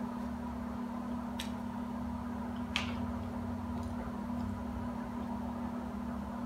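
Steady low electrical hum of room background, with two faint sharp clicks, about one and a half and three seconds in.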